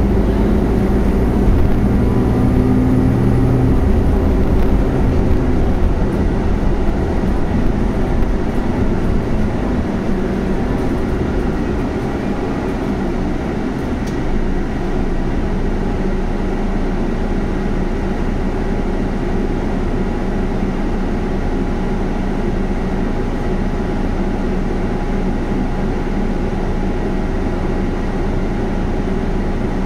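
Scania CNG articulated city bus under way, heard from inside the passenger cabin: the engine and drivetrain run with road noise, a little louder for the first several seconds, then easing to a steady, even level.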